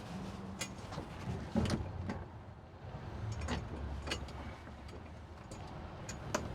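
Low boat engine rumble at idle, with a handful of sharp knocks and clicks scattered through it.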